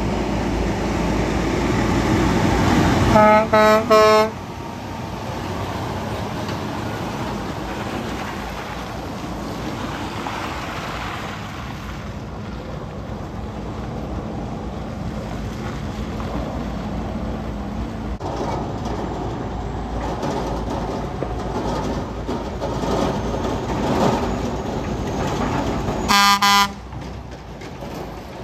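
Semi-truck horn sounded in three short blasts about three seconds in, over the steady engine and road noise of heavy trucks driving past; another short horn blast comes near the end.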